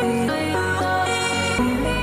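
Electronic background music: a melodic synth line over a steady bass, with a deep bass note coming in near the end.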